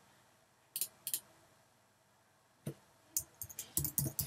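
Two short clicks about a second in and another near three seconds, then quick typing on a computer keyboard to the end.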